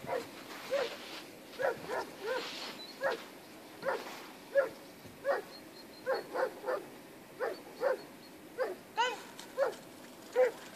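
A dog yipping and whining, short high calls about every half second, as it waits in a down to be called in: the eager, excited noise of a dog held back before a recall.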